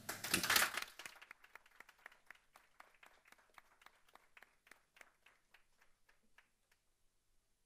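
Small audience applauding. The applause is dense for the first second, then breaks into scattered single claps that thin out and die away after about six seconds.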